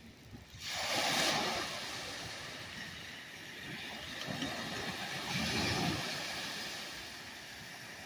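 Small Lake Huron waves lapping onto a sand beach, with two louder washes, one about a second in and one around five to six seconds in, over a steady low rumble.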